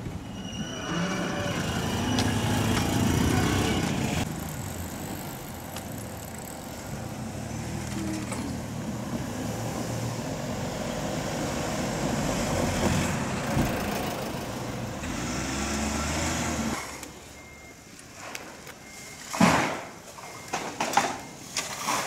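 Road traffic crossing a railway level crossing after the barriers lift: cars and a small delivery truck drive over, engines running and pulling away as they pass. About three-quarters of the way through the traffic sound drops off, and a few sharp knocks follow near the end.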